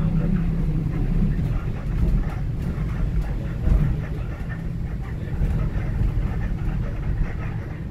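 A city bus running: steady low engine and road rumble, with faint rattles.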